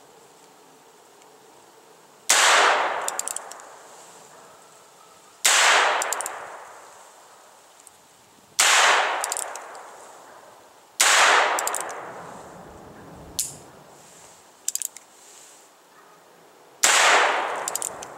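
Five .22 Magnum shots from a Heritage Rough Rider single-action revolver, spaced a few seconds apart, each trailing off in a long echo and followed by the small clicks of the hammer being cocked by hand. Between the fourth and fifth shots there is a lone click as the hammer falls on an empty chamber, because only five rounds were loaded. Then the hammer is cocked again.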